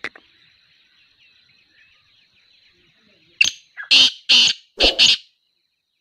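Male black francolin calling: a harsh series of about six loud, grating notes in quick succession, starting about three and a half seconds in, over a faint steady high tone.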